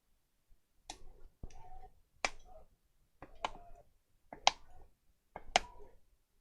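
Six sharp plastic clicks, roughly one a second, each with a brief ring, as parts of a Samsung Galaxy Tab 4 tablet are handled and worked apart during disassembly.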